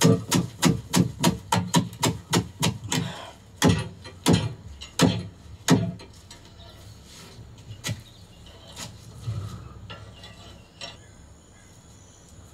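A stack of freshly cooked parottas being slapped and crushed between the palms, which fluffs up and separates their flaky layers. A rapid run of sharp slaps comes about three a second, then four slower, harder ones; after that only a faint background remains.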